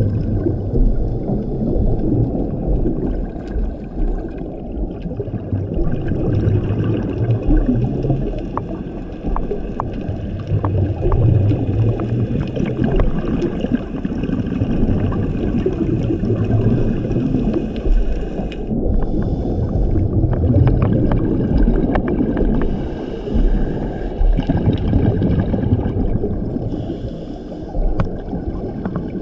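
Scuba regulator breathing underwater: exhaled bubbles gurgling and rumbling, swelling every few seconds with each breath, with faint scattered clicks throughout.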